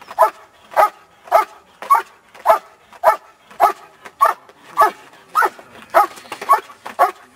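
German Shepherd dog barking in a steady, even rhythm, a little under two barks a second, at a helper standing in a blind: the bark-and-hold exercise of protection training.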